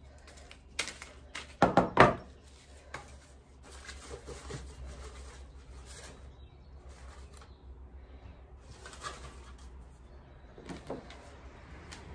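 Wire cutters and wire-stemmed silk flowers being handled: a few sharp clicks and knocks, loudest about two seconds in, then soft rustling as the stems are pushed in among the flowers in a wooden toolbox, with a few more clicks near the end.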